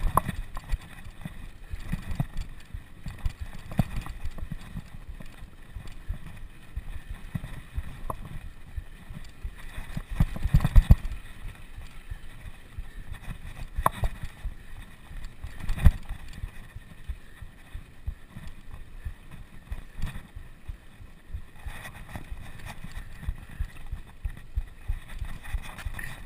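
Bicycle ridden over rough ground, heard close up: an irregular run of jolts and rattles, with the heaviest knocks about ten and sixteen seconds in.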